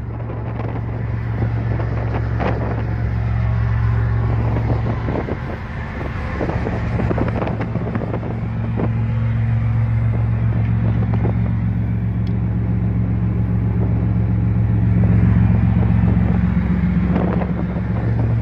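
Steady low drone of a ship's engine exhaust heard up at the funnel, a deep even hum, with scattered knocks and rubbing from handling close to the microphone.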